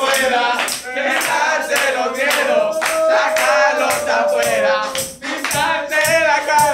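A man singing a song, with a tambourine beating along in a steady rhythm.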